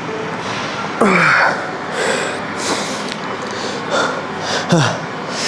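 A man's effort sounds while straining through a set of cable bicep curls: two groans that fall sharply in pitch, one about a second in and one near the end, with short forceful breaths between them.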